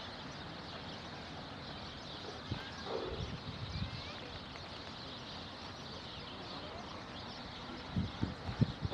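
Birds chirping and screeching over a steady wash of wind and lapping water. Gusts of wind rumble on the microphone around three seconds in and again near the end.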